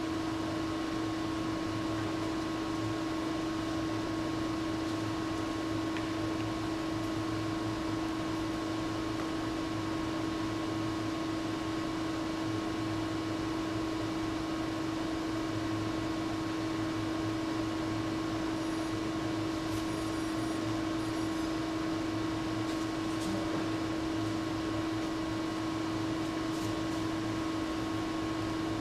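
Steady mechanical hum with a constant droning tone, unchanging throughout, with a few faint ticks about twenty seconds in.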